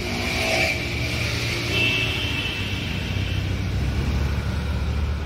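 A motor vehicle engine running with a steady low rumble that grows a little stronger about four seconds in, with a faint high steady tone over it partway through.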